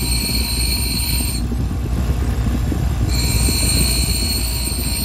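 A Delta 6-inch bench grinder runs with a steady hum while a strip of bandsaw blade is pressed against the wheel twice. Each contact adds a high grinding screech: once for about the first second and a half, then again from about three seconds in.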